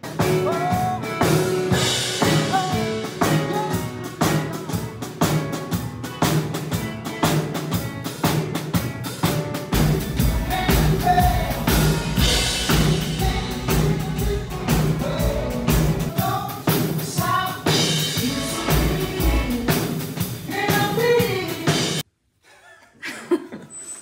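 A live band sound-checking: drum kit keeping a steady beat under bass, guitar and a singing voice. It cuts off suddenly near the end.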